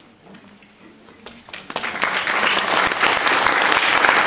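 Audience applause. After a quiet start with a few faint knocks, clapping breaks out about one and a half seconds in and quickly swells to steady, full applause.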